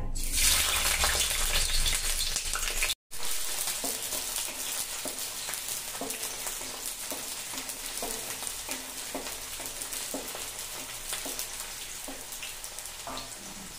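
Sliced onions sizzling in hot oil in a metal kadhai, loudest just as they go in. A wooden spatula stirs them, scraping the pan about once a second. The sizzle cuts out briefly about three seconds in, then carries on steadier and a little quieter.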